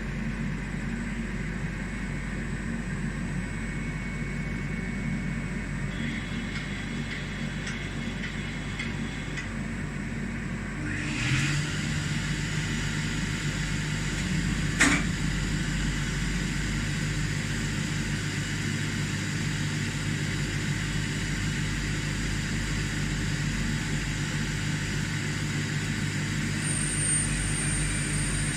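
Emco EmcoTurn 220 CNC lathe running with a steady machine hum. About eleven seconds in the sound steps up and a hiss joins it, and a single sharp click follows a few seconds later.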